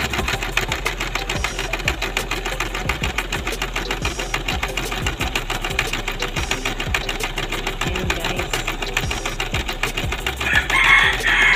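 Portable sewing machine running steadily at speed, its needle making a rapid, even clatter as it sews a zigzag stitch. A rooster crows loudly near the end.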